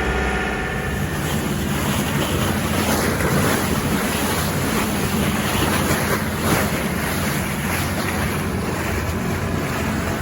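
Motor fishing boat under way, its engine running steadily under the rush of water along the hull, with wind buffeting the microphone.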